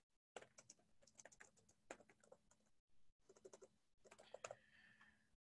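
Near silence, broken by faint, scattered light clicks.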